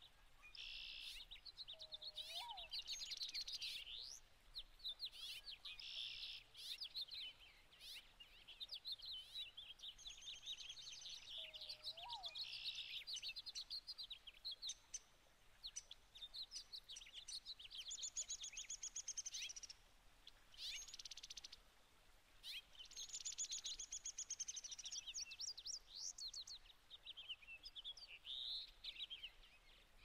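Small songbirds chirping and twittering, many overlapping calls and trilled phrases with only short gaps. Two short, lower swooping notes stand out, a few seconds in and again near the middle.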